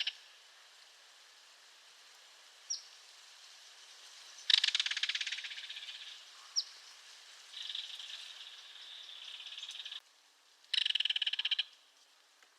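Belted kingfisher giving its dry rattle calls. A loud rattle comes about four and a half seconds in and fades out, a fainter, steadier one follows, and a short loud rattle comes near the end. Two very brief high chips fall between them.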